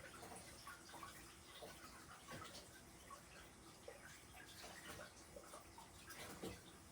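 Faint washing-up at a kitchen sink: trickling water with small, irregular clinks and knocks of dishes.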